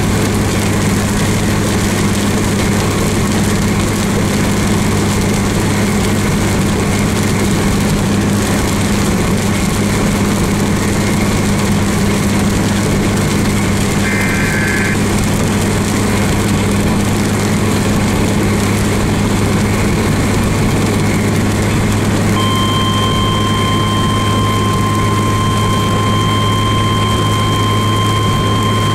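Steady road, engine and rain noise inside a car driving on a wet highway, with a constant low hum under it. Briefly about halfway through there is a short electronic beep, and about two-thirds of the way in a steady high electronic tone starts and holds.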